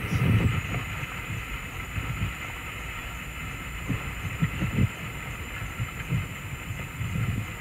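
Wind buffeting an outdoor webcam microphone, heard as a gusty low rumble with a few short thumps about four to five seconds in, over a steady faint electronic hiss.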